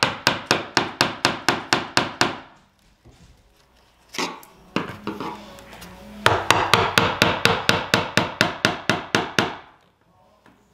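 Hammer tapping rapidly, about four sharp strikes a second, to work old baseboard loose from the wall. One run stops about two seconds in, a couple of single knocks follow, and a second run goes from about six seconds to nine and a half.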